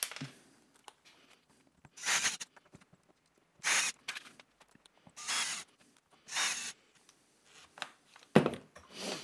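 Cordless drill/driver driving hinge screws into a locker door panel in four short bursts, about a second to a second and a half apart. A sharp knock near the end.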